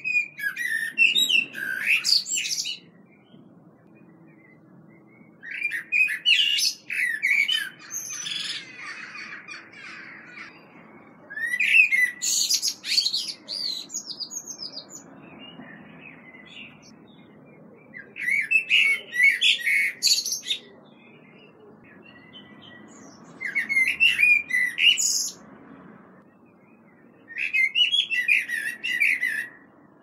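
European robin singing: six separate short song phrases of varied high notes, each lasting two to three seconds, with pauses of a few seconds between them.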